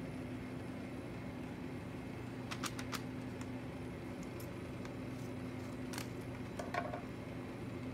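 Steady low machine hum, with a few light clicks and paper crinkles about two and a half seconds in and again near the end as a paper seed packet is handled.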